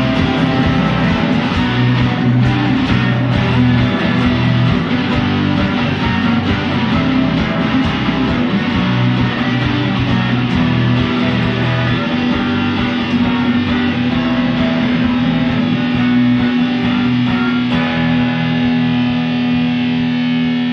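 Rock band playing an instrumental passage with distorted electric guitar and no singing. Near the end the playing settles into a long held chord.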